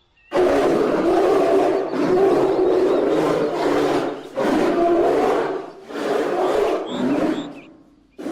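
Spotted hyenas growling and roaring in four long, harsh bouts with short breaks between them.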